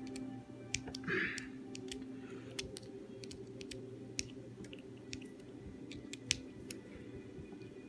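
Small scattered clicks of a small screwdriver working the tiny screws on a Casio G-Shock Mudmaster watch, with a brief scrape about a second in, over a steady low hum.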